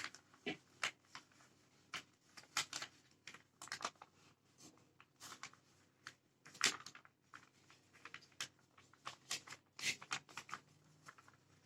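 A sheet of paper being folded and creased by hand: faint, irregular rustles and crinkles, with a louder crackle about six and a half seconds in.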